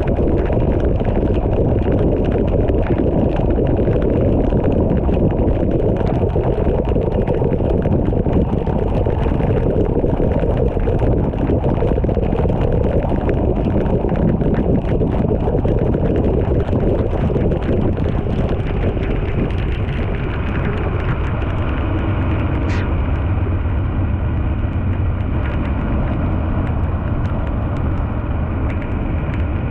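Heavy rain hitting a car's roof and windshield, with tyre hiss on the flooded road and engine rumble, heard from inside the car; the road noise eases somewhat over the last third as the car slows toward the red light. A brief high squeak sounds about three-quarters of the way through.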